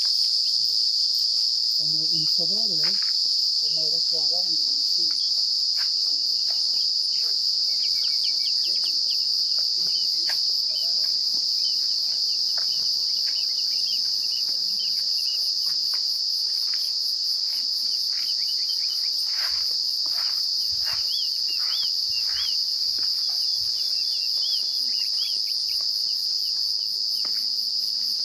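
Steady high-pitched insect chorus, a continuous trill, with occasional short chirps over it.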